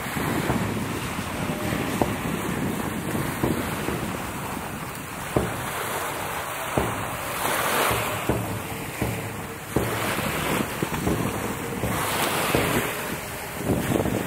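Wind buffeting the microphone over the sound of sea water, with a few sharp knocks scattered through.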